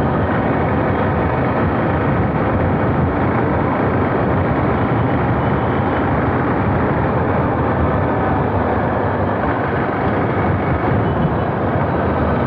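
Riding a motorcycle through traffic at moderate speed: steady, loud wind rush over the microphone, with engine and road noise underneath.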